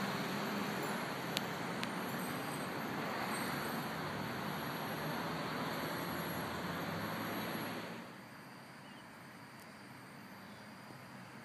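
Steady outdoor hum of distant road traffic, with two short clicks about a second and a half in. About eight seconds in it drops to a much quieter, thinner hiss.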